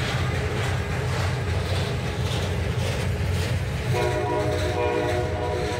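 Freight train of flatcars loaded with welded rail rolling past, with a steady wheel rumble and repeated clacking over the rail joints. About four seconds in, a train horn sounds a chord for a second and a half.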